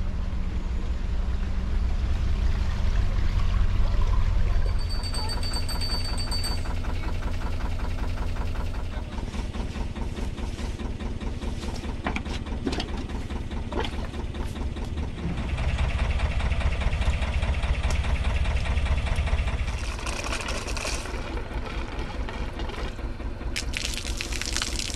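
Narrowboat's diesel engine running with an even low chugging, getting louder for a few seconds past the middle, and a couple of sharp knocks.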